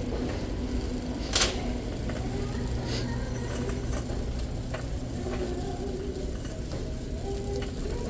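Store ambience: a steady low hum with faint distant voices, and one sharp clack about a second and a half in.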